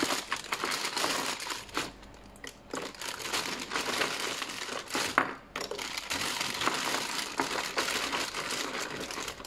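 Plastic bag of ice cubes crinkling and rustling as a hand takes cubes out and drops them into a mug of iced Milo, with a few sharp knocks among the crinkling.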